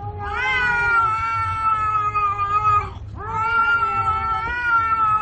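A cat yowling: two long, drawn-out yowls, each rising at the start and then held steady, the second beginning about three seconds in.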